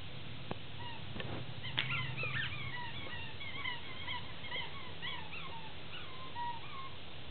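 A dog whining in a run of many short, high whimpers, some rising and some falling in pitch. They start about two seconds in and thin out near the end, over a low steady hum.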